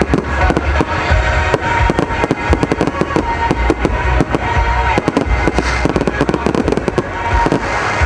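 Fireworks display: a rapid, irregular run of shell bursts and crackling over accompanying music.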